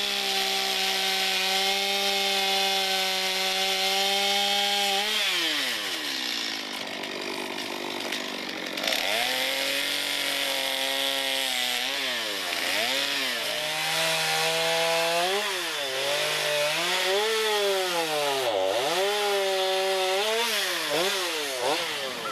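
Chainsaw running at high revs for about five seconds, then the throttle is let off and blipped repeatedly, so the engine note falls and rises several times.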